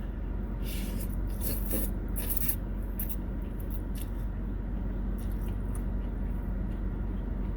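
Close-up eating sounds of a person eating noodle soup: short, scattered wet mouth and utensil noises, busiest in the first three seconds, over a steady low hum.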